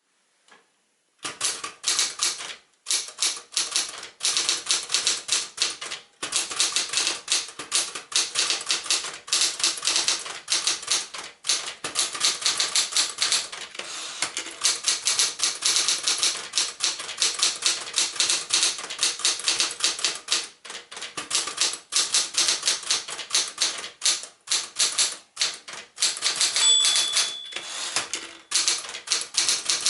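1966 Smith-Corona Super Sterling manual portable typewriter being typed on: fast, uneven runs of key and typebar strikes clacking against the platen, starting about a second in, with short pauses between bursts. One short ringing tone sounds near the end.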